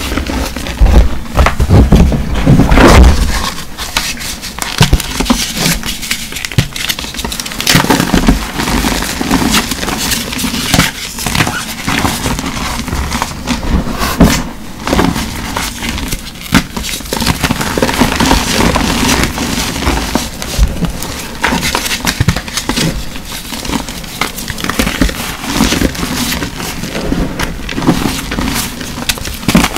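Hands crushing and crumbling blocks of reformed gym chalk into powder: a dense, irregular crunching and crackling.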